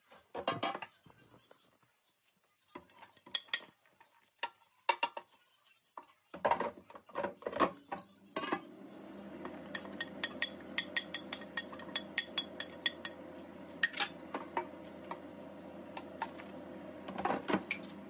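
A metal spoon scraping and clinking against a ceramic plate, in scattered taps at first and then a fast run of clicks. From about six seconds in, a steady low hum runs underneath.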